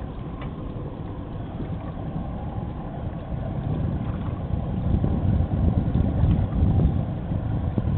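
Low, uneven rumble on a fishing boat, swelling about four seconds in and easing near the end.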